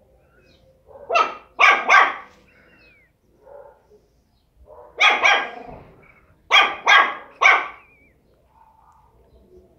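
Small pinscher dog barking in three quick bursts: three barks about a second in, two more near the middle, then three more.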